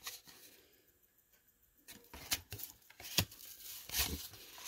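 Cardboard 1986 Fleer baseball cards handled in the hand: after about two quiet seconds, a few short flicks and rustles as cards are slid off the stack one by one.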